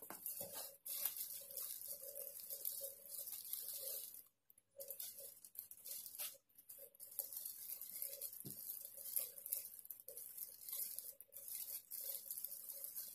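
Faint, irregular crinkling and rustling of a clear plastic bag being handled, with a couple of brief pauses.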